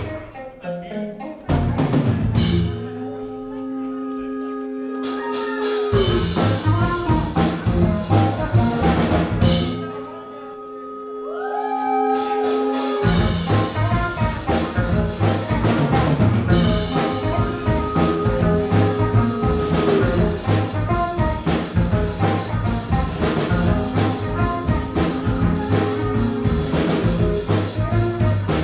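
A live band playing. Twice the drums and bass drop out, leaving held chords, and then the full band comes back in with a steady beat.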